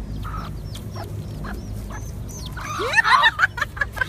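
Animal calls: a run of short, high, falling chirps, then about three seconds in a louder burst of cries that glide up and down in pitch.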